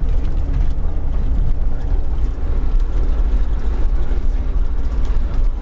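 Minibus engine and tyre rumble on a rough dirt road, heard from inside the cabin: a loud, steady, deep drone.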